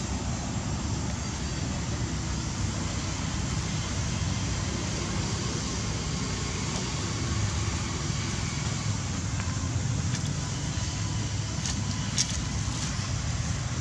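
Steady outdoor background noise, a low rumble under a hiss, with a few faint clicks near the end.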